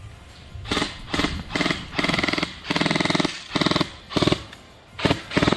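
A man yelling angrily in a run of loud, strained shouts, one after another, with a longer held yell in the middle.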